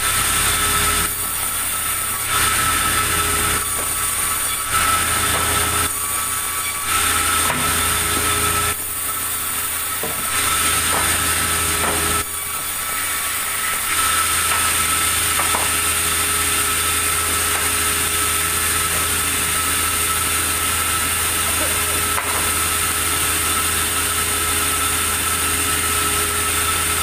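Sawmill machinery running steadily with a constant high whine over a low hum; in the first half its sound shifts back and forth every second or two, then it settles into an even drone.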